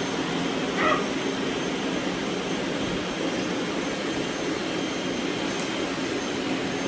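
Several robot vacuums running at once: a steady, even noise of their motors and brushes.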